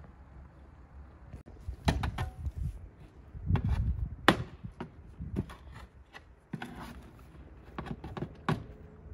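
A series of irregular sharp knocks and thuds, about a dozen, the loudest about four seconds in, over a steady low rumble.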